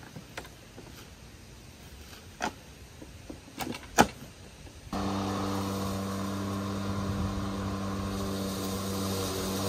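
A few sharp clicks and knocks from a PowerSmart 40V battery-powered push mower being handled, the loudest about four seconds in. About five seconds in, the mower's electric motor and blade come in abruptly, running with a steady hum over a whir of cutting.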